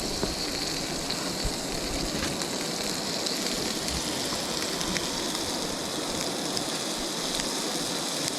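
Trout fillets sizzling and crackling in butter in a frying pan, steady throughout, with the rush of the river underneath.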